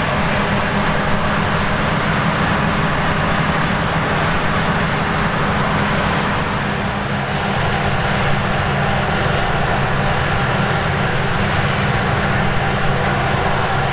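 Heavy harvest machinery running steadily under load: a large diesel engine's low drone mixed with mechanical noise, with no break or change in pitch.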